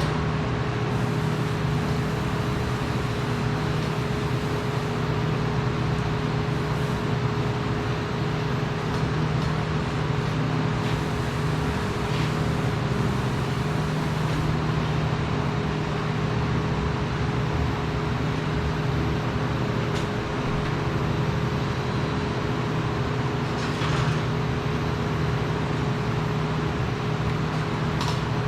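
Steady mechanical drone of running machinery, with a constant low hum under a broad noise, and a few faint ticks.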